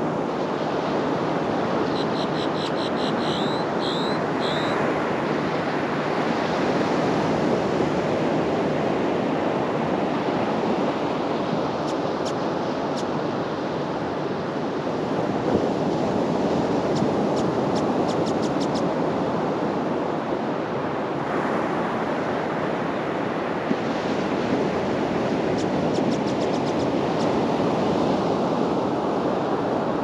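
Ocean surf breaking and washing up a sandy beach, a steady rushing. A quick run of high chirps comes about two to five seconds in, and faint high ticking comes around the middle and again near the end.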